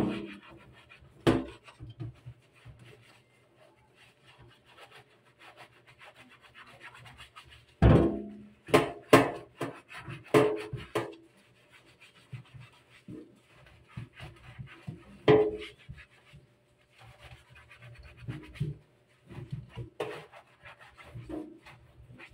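Scrubbing of a plastic water-purifier filter housing with a sponge and cloth, a rough rubbing sound broken by sharp knocks and clunks of the plastic against a stainless-steel sink. The knocks are loudest about a second in, in a cluster around eight to eleven seconds in, and again around fifteen and twenty seconds in.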